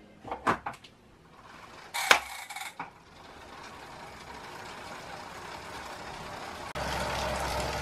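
Elite Direto direct-drive smart trainer whirring as the rider starts to pedal, growing steadily louder as it spins up, with a jump in level and a low hum near the end. A few sharp clicks and a louder knock come in the first two seconds.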